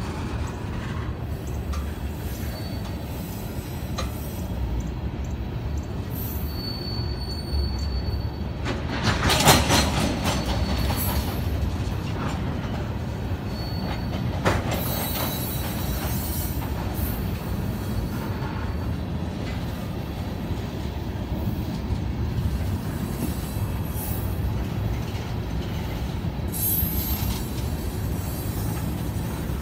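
Freight train of tank cars rolling by on a curve: steady rumble of steel wheels on the rails, with brief high wheel squeals now and then. The loudest squealing and clatter comes about nine seconds in.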